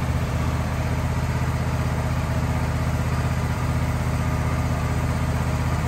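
Wood-Mizer LT15 portable sawmill's gasoline engine idling steadily.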